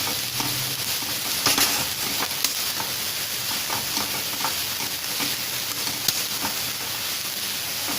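Mashed potato and spice filling being stirred and scraped in a hot pan, with a steady sizzle and frequent short scrapes of the utensil against the pan.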